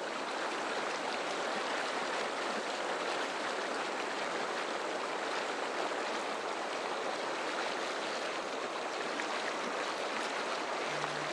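Fast river current rushing through rocky rapids: a steady, unbroken wash of water noise.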